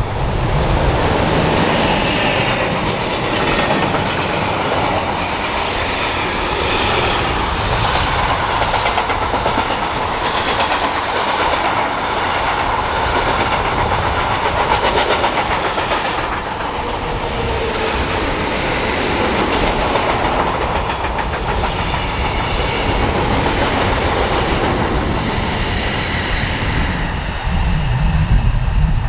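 Train passing close by on a main line, with a long, steady sound of wheels running on the rails and faint steady whining tones above it.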